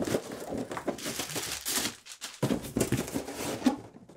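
Cardboard shipping box being handled: flaps rustling and scraping as the boxed contents are pulled out, with a brief lull about two seconds in.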